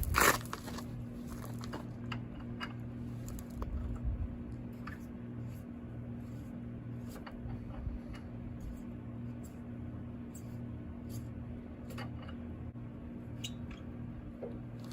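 Scattered clicks and light knocks of hand work on a 1990 Honda TRX200 ATV as the gas tank is taken off, with a louder knock right at the start, over a steady low hum.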